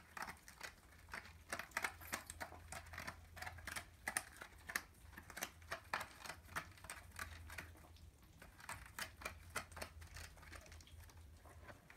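A kitten clawing and scratching at a corrugated cardboard scratcher pad: a run of quick, irregular scratchy rasps and clicks, over a faint low hum.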